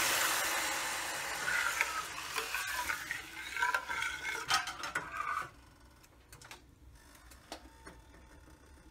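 Hot spice tempering in a stainless steel pan sizzling as tamarind extract goes in, the sizzle dying down over the first second or two. A steel ladle then stirs and scrapes against the pan until about five and a half seconds in, followed by a few faint clicks.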